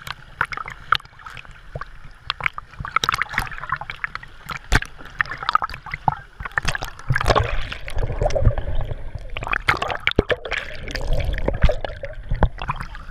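Sea water splashing and sloshing against a waterproof action camera held at the waterline, with many sharp splashes and drops. From about halfway a heavy low rumble joins in as water washes over the camera, and near the end it dips under the surface.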